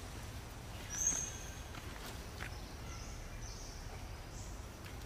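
Outdoor forest ambience: a steady low rumble under a faint, steady high tone, with a short high-pitched call about a second in and a few fainter high calls later.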